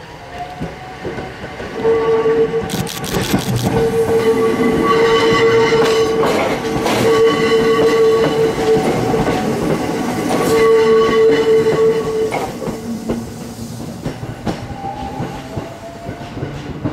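Hakone Tozan Railway 3000-series 'Allegra' electric railcars pulling away and passing close by. Wheels click over the points about three seconds in, and a steady high whine holds with short breaks for most of the pass before the sound dies away as the train leaves.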